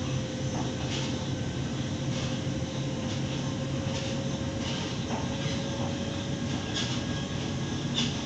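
Cabin sound of a Waratah Series 2 electric train running between stations. There is a steady low rumble from the wheels and running gear, a steady motor whine that rises slightly in pitch, and short high creaks every second or so.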